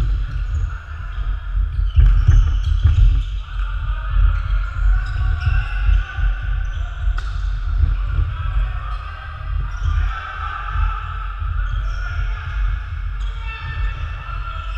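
Footsteps of players running and cutting on a wooden sports-hall floor: a steady patter of dull thuds, with shouts and calls echoing around the hall.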